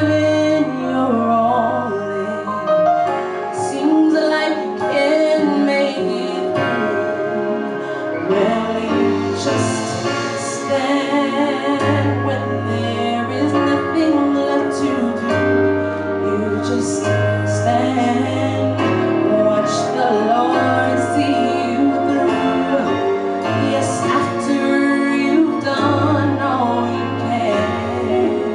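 A woman singing a gospel song into a handheld microphone, with long wavering held notes, over accompanying music with a steady low bass.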